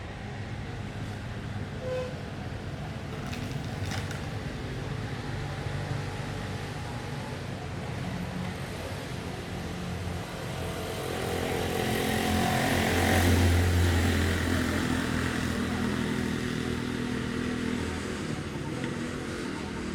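A motor vehicle engine running, growing louder to a peak about two-thirds of the way through and then fading.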